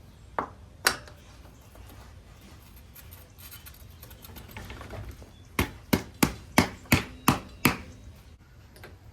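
Hard knocks on a bike part during assembly: two single knocks about half a second apart near the start, then seven sharp knocks about three a second, like tapping a part into place.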